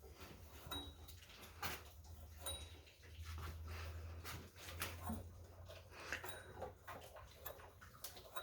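Faint, scattered clicks and scrapes of hand work on a freshly reamed pipe end, clearing metal shavings out of it, over a low steady hum.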